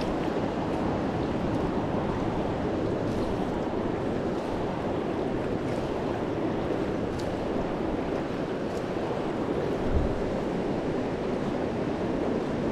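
Fast river current rushing steadily over rocks in a shallow riffle. A brief low bump comes about ten seconds in.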